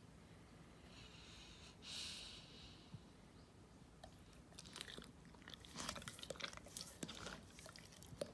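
Golden retriever yawning with a breathy hiss about two seconds in, followed by a run of small wet mouth clicks and lip-smacking.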